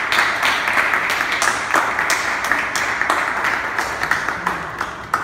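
Audience applauding, a dense patter of many hands with a few sharper individual claps, slowly fading toward the end.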